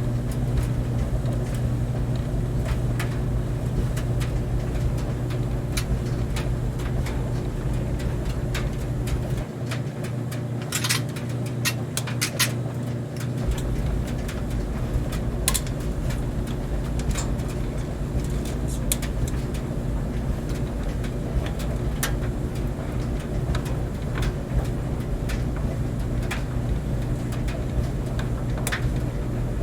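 Clothes dryer running with a steady low hum, with scattered irregular clicks over it.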